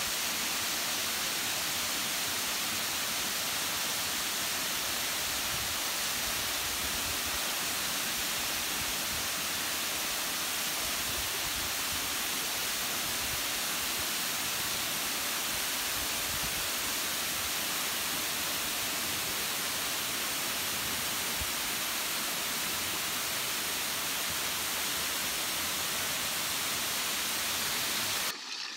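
Waterfall plunging into a rock pool: a steady, even, hissing rush of falling water. Near the end it cuts off suddenly to the quieter sound of a small stream.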